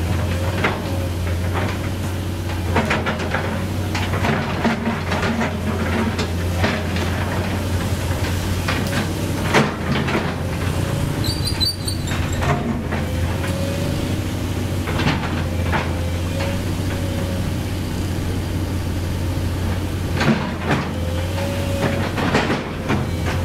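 Sumitomo SH200 hydraulic excavator's diesel engine running steadily while its bucket scrapes and breaks up worn asphalt, with repeated knocks and scraping of broken pavement and a few short squeals.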